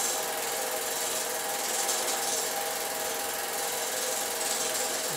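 Film projector running: a steady mechanical whirr with a few constant hum-like tones under a hiss.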